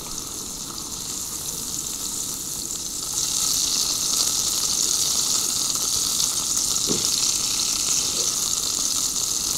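Bacon rashers sizzling in a frying pan on a portable gas camping stove as they are turned with a fork. The steady sizzle grows louder about three seconds in.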